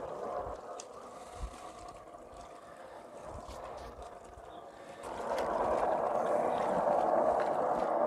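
Homemade 12-volt bucket washing machine running: water and clothes sloshing in the plastic drum as the agitator swings back and forth, the sloshing growing louder about five seconds in.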